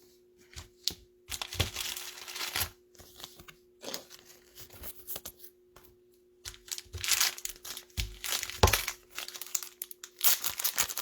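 Plastic crinkling and rustling in irregular bursts, with a few sharp clicks, as trading cards are slid into plastic sleeves and handled.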